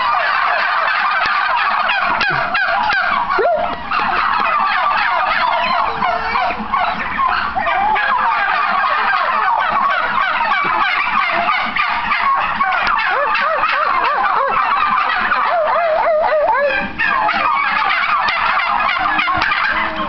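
A flock of domestic turkeys gobbling together: many birds' rapid, warbling gobbles overlap into one dense, unbroken chorus, with short lulls about three and seventeen seconds in.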